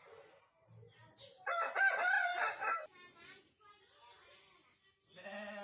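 Aseel rooster crowing once, a short crow of about a second and a half starting about one and a half seconds in.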